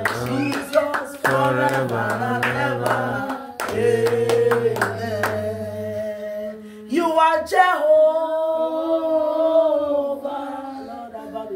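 A woman singing a worship song, clapping her hands for the first few seconds over a steady low accompaniment that stops about halfway through. She then slides up into a long held note.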